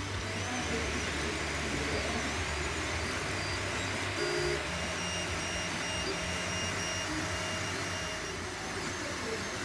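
Anycubic i3 Mega S 3D printer printing: its stepper motors whine in steady tones that switch pitch every second or so as the head and bed move, over a steady rushing hiss.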